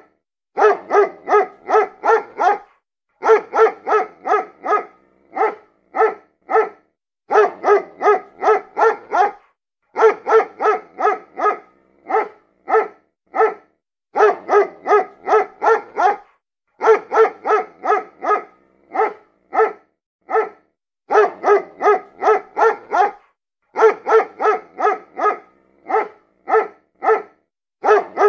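Dog barking in quick runs of five to eight barks, about three a second, each run followed by a short pause, over and over.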